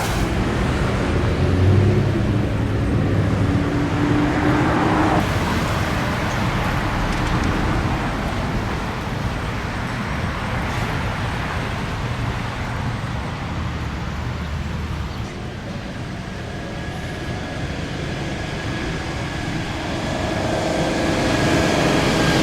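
Steady road traffic noise with the rumble of vehicle engines, swelling louder near the end as a vehicle draws close.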